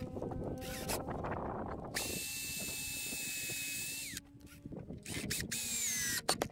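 Cordless drill-driver driving into wooden timber: after some handling rustle, the motor runs at a steady high whine for about two seconds and stops, then runs again briefly, its pitch sliding down as it slows near the end.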